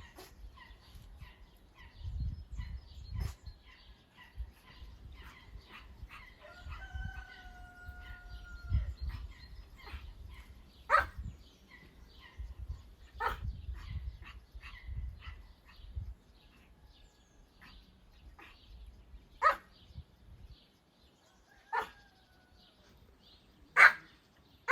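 Village yard animals: a rooster crows once, and a dog gives about five single barks spread over the second half, over steady small-bird chirping.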